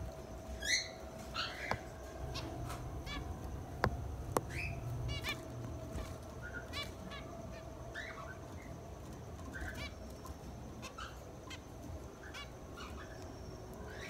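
Zebra finches calling: many short calls, repeated irregularly throughout, with two sharp clicks about four seconds in.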